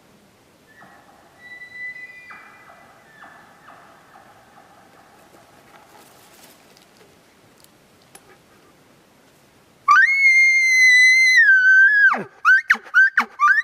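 Elk bugle. A faint pitched call comes in the first few seconds. Near the end a loud bugle: a high whistle held about two seconds that drops sharply in pitch, then a quick string of grunting chuckles.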